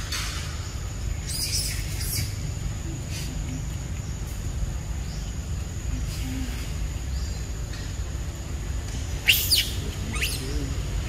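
Wild birds chirping in forest: a few faint high chirps early, then two loud, sharp downward-sweeping calls near the end, over a steady low rumble.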